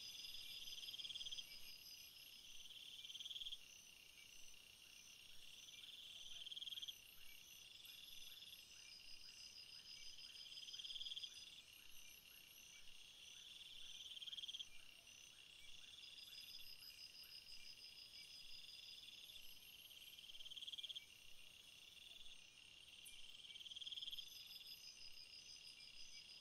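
Faint chorus of night insects chirping: long high trills recurring every few seconds, with quicker pulsing calls layered above them.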